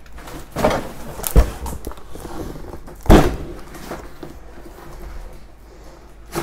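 Handling noise as goods and boxes are moved and set down: a few knocks, with a heavy thump about three seconds in as the loudest sound.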